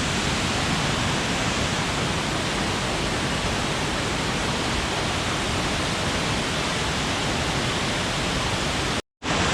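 Steall Falls, a high waterfall, pouring down with a steady, loud rushing roar. The sound cuts out for a moment near the end.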